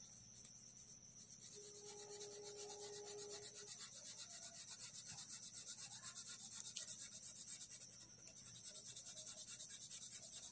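Faint scratching of a blue felt-tip sketch pen rubbed across drawing paper in quick, even back-and-forth strokes, colouring in one slanting direction. The strokes pause briefly about eight seconds in, then start again.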